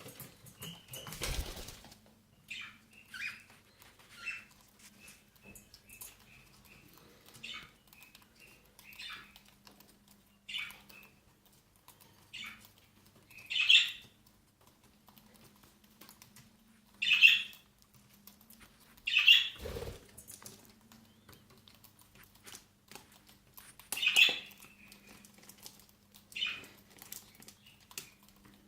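Cockatiels moving about and feeding, making scattered short rustles, pecks and chirps, a few of them clearly louder than the rest, over a faint steady low hum.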